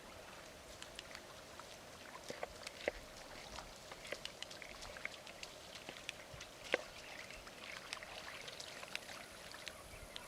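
Water dripping and trickling, with many irregular light ticks and drips over a steady faint background.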